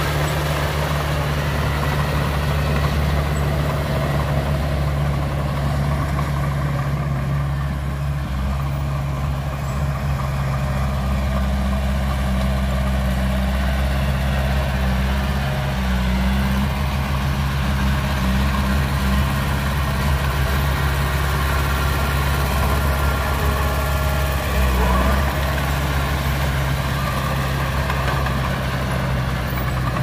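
Heavy diesel engine of earthmoving machinery running steadily at low, even revs.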